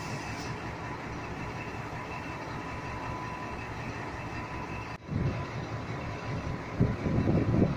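Steady rail-yard noise with a faint steady whine. After a cut about five seconds in, the diesel engine of locomotive 1401 runs with a loud low rumble that grows louder near the end.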